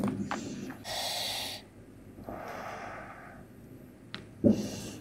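Close-miked breathing and mouth sounds of a person eating: a sharp hissing intake of breath about a second in, a softer breath out a moment later, and a loud wet mouth sound near the end.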